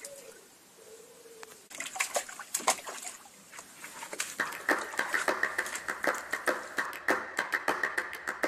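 A cavalier King Charles spaniel wading in a plastic paddling pool, the water splashing and sloshing around its legs in a run of quick splashes that grows busier from about four seconds in.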